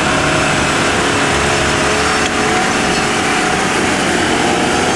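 Jeep engine running hard at high revs under load as it climbs a steep dirt hill, loud and steady.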